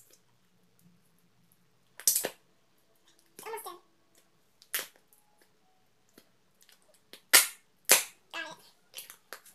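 Slime being squeezed and stretched by hand, giving a series of sharp pops of trapped air, loudest about two seconds in and twice near seven and a half seconds, with smaller snaps between.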